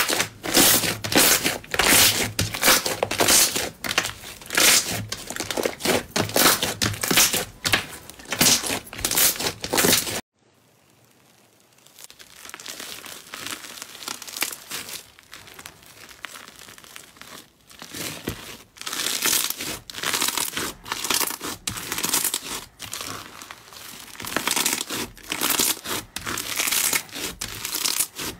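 Slime being stretched, pulled apart and squished by hand, giving dense sticky crackles and tearing sounds in quick clusters. About ten seconds in the sound cuts off abruptly. It then starts again more softly and builds back up as a pink slime is stretched and pressed.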